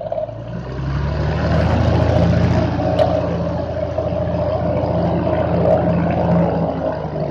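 Van's RV-10 light aircraft engine running on the ground, growing louder about half a second in and then holding a steady, even drone.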